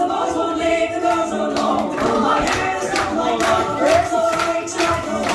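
A song sung by several voices together over a regular beat.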